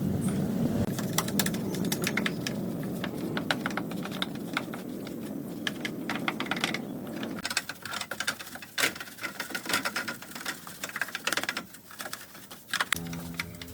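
Rapid, irregular clicking and tapping, over a low rumbling noise in the first half. A short pitched hum sounds near the end.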